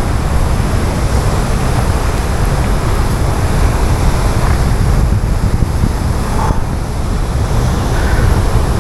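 Steady loud rushing noise of wind buffeting the microphone over the roar of water at a dam spillway.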